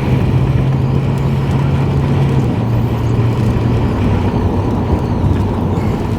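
Steady road and engine noise inside a moving vehicle's cabin, with a low engine hum that drops slightly in pitch about two and a half seconds in.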